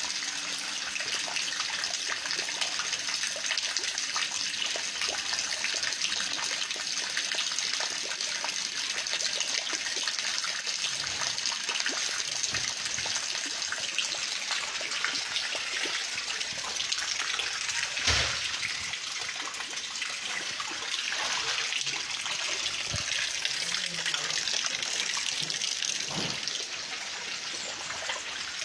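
Steady rush of water from heavy rain over a flooded yard, with many fine patters in it. One sharp knock about two-thirds of the way through.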